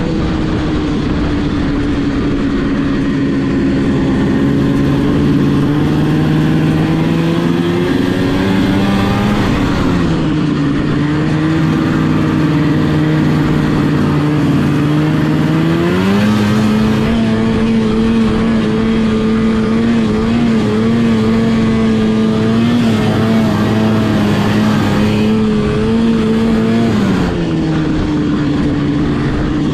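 1974 Arctic Cat Cheetah 340 snowmobile's two-stroke engine running steadily under way. Its pitch drops about nine seconds in, climbs back about sixteen seconds in, and drops again near the end.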